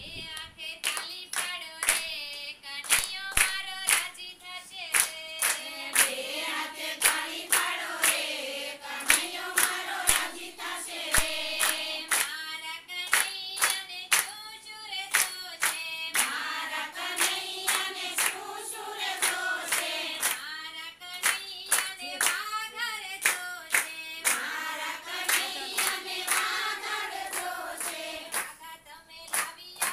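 A group of women singing a Gujarati devotional kirtan together, keeping time with sharp, regular hand claps.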